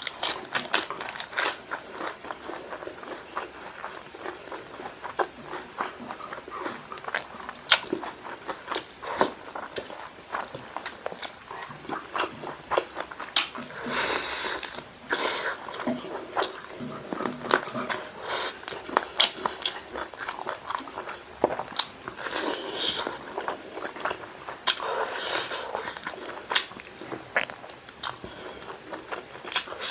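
Close-miked eating: biting into and chewing spicy fried chicken, with many short wet mouth clicks and smacks, and a few longer crunching bites about halfway through and again later on.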